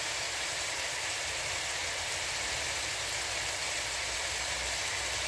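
Diced pork with onion, garlic and lemongrass frying in a pan: a steady sizzle.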